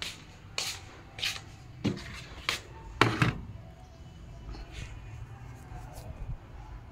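Knocks and clatters of kitchen things being handled: about five sharp knocks in the first three seconds or so, the last the loudest, then quieter handling sounds.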